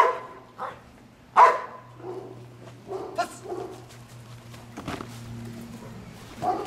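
A trained protection dog barking in short, sharp barks as a man with a stick goads it. The loudest barks come right at the start and about one and a half seconds in, with more around three seconds and near the end.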